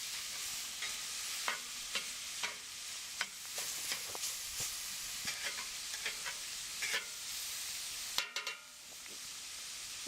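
Ground beef sizzling in a cast iron skillet, with a utensil scraping and clicking against the pan as the meat is stirred. The sizzle drops off suddenly about eight seconds in, leaving a quieter hiss.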